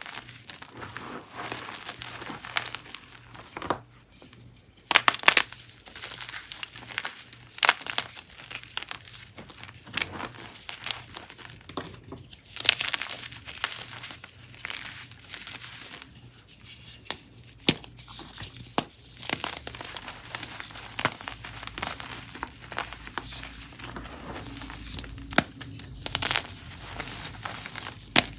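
Chunks and blocks of gym chalk being crushed, a dense run of uneven crunches and crumbly crackles, with a few sharper, louder crunches.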